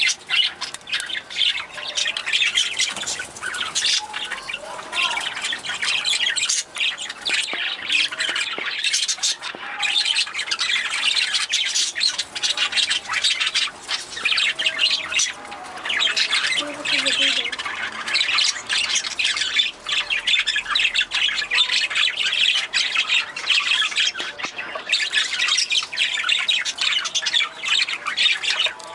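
Budgerigars chattering, with many short, harsh calls overlapping without a break.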